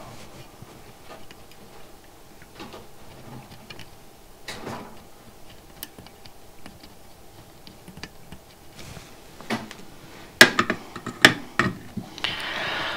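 Small clicks and taps of a soldering iron and component leads against a perforated prototyping board held in a bench clamp, with a quick run of sharper clicks about ten seconds in and a brief rustle of the board being handled near the end.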